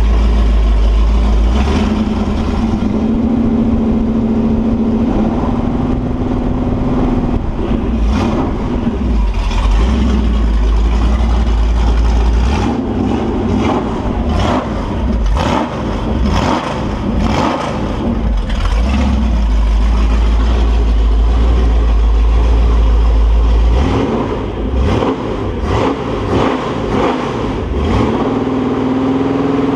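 Holden 355 stroker V8 running on a test stand, its revs rising and falling as the throttle is worked at the carburettor, steady in between. A new cam and lifters are being bedded in.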